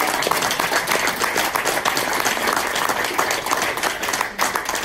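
Audience applauding, many people clapping steadily and loudly.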